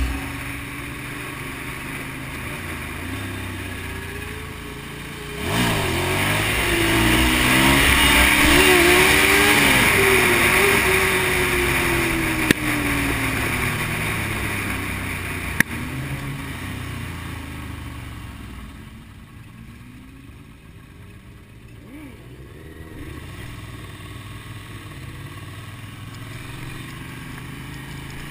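Sport motorcycle engine revving up and down through the gears as the bike accelerates, with wind rushing over the helmet microphone. The engine note rises and falls several times and the wind gets louder, then it eases off to a lower, steadier running about twenty seconds in. Two sharp clicks come in the middle.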